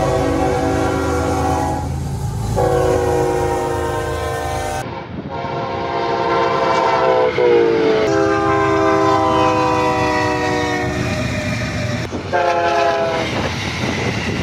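Locomotive air horns sounding a series of about five long blasts with short gaps, the chord changing from one blast to the next, over the low rumble of passing trains.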